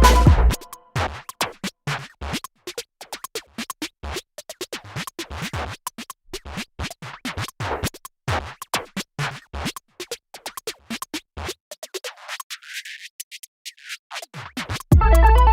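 Background electronic music in a sparse break: irregular scratch-like clicks and ticks without bass or melody, until the full beat with bass and melody comes back near the end.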